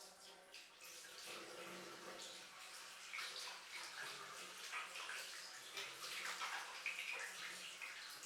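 Water running from a tap and splashing into a basin.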